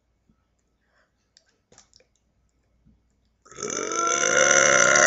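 A woman's long, loud burp starting about three and a half seconds in and held steadily for about two seconds. Before it come a few faint clicks.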